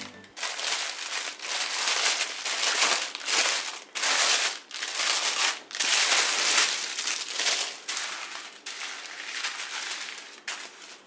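Clear plastic bag crinkling as it is pulled open, then small plastic zip-lock bags of diamond-painting drills rustling and dropping onto a desk as they are spread out. The rustling comes in repeated short bursts with brief gaps and grows softer toward the end.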